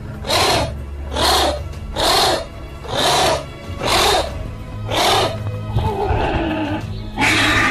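Background music with steady low tones and a beat of hissing, breath-like bursts about once a second. The beat breaks briefly near the end.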